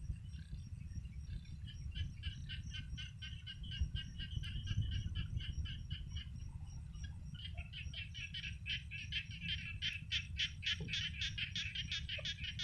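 A frog calling in a long series of short, evenly spaced pulses, about five or six a second, getting louder about halfway through, over a steady low rumble.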